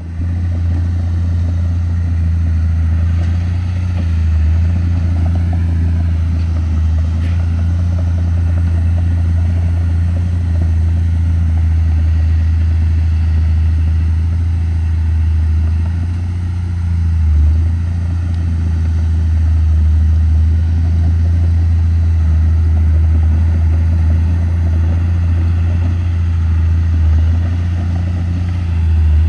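Komatsu D31P crawler bulldozer's diesel engine running steadily under work, a loud, constant low drone with brief swells about halfway through and near the end.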